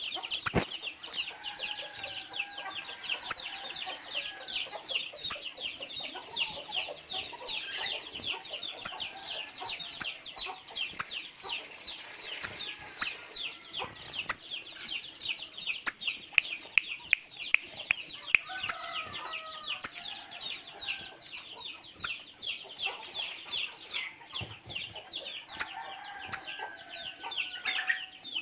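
Crimson sunbird singing a fast, unbroken twitter of rapid high notes, each sliding quickly down, with sharp clicking chips now and then. Chickens cluck faintly underneath.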